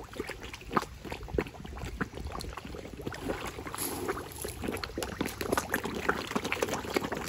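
A crowd of koi churning at the pond surface: a steady run of small, irregular splashes and water ticks as the fish break the surface.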